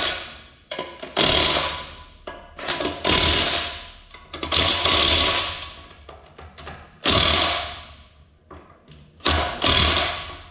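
Handheld cordless power tool driving in the transmission's bell-housing bolts in a run of short bursts of about a second each, five in all, each starting suddenly and tailing off.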